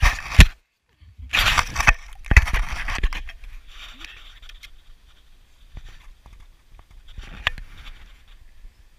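A dog nosing and pawing at a camera on the ground: close scraping and rustling with dull thumps against the microphone, loudest in the first three seconds. Then quieter rustling in grass, with one more brief scrape near the end.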